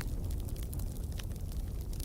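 Wood fire burning in a fireplace: a steady low rumble of flames with scattered crackles and pops, a sharper pop about a second in.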